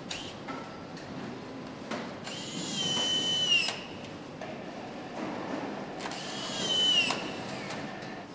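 Cordless power screwdriver driving fasteners twice, each run a high whir that rises, holds and drops in pitch as the screw seats, over steady assembly-hall noise.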